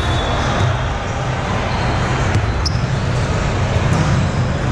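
Steady din of a large indoor volleyball tournament hall: a low rumble of many voices mixed with scattered thumps of balls from the courts, and a few sharp clicks about halfway through.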